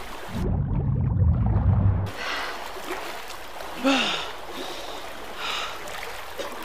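Muffled underwater rumble with only the low end audible for about two seconds, then the sound opens up as people break the surface: water splashing and sloshing, with a sharp gasp for breath about four seconds in.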